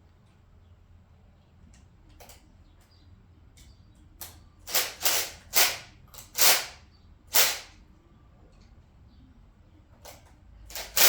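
Hand tool scraping and rasping against a stuck, rusted fastener: a few faint clicks, then from about four seconds in five loud scrapes over about three seconds, and a faster run of them starting near the end.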